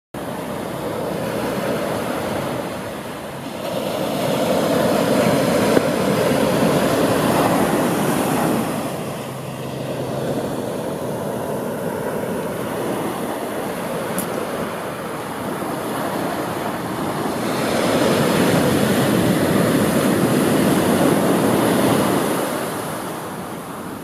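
Ocean surf breaking and washing up a sandy beach: a steady rush of water that swells into two long surges, about four to nine seconds in and again about eighteen to twenty-two seconds in.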